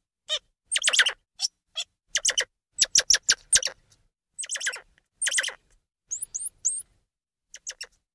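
Squirrel monkey calls: short, high-pitched chirps coming in quick clusters with brief pauses between them, and a few rising whistle-like sweeps about six seconds in.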